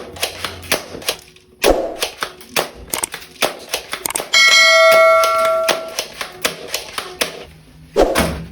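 Toy guns clicking and snapping in quick, irregular succession, with two louder hits, one about a second and a half in and one near the end. A bell-like ringing tone sounds for about a second and a half in the middle.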